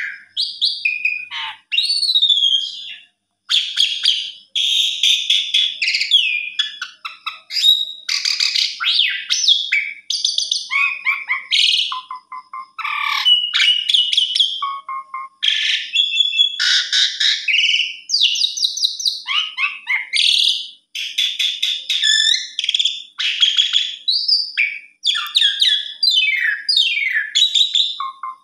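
Asian pied starling (jalak suren) singing a long, varied song of whistles, rising and falling glides and fast chattering rattles, broken only by a few short pauses.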